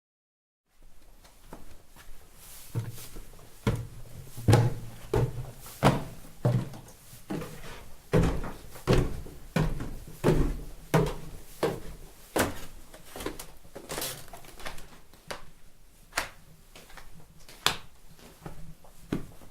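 Footsteps in home slippers: an even series of soft thumps with a slap on each step, about one and a half steps a second, starting about a second in.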